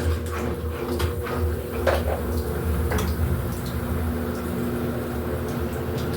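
Electrolux LED14 14 kg washing machine running a quick wash: a steady motor hum with a few short knocks about two and three seconds in.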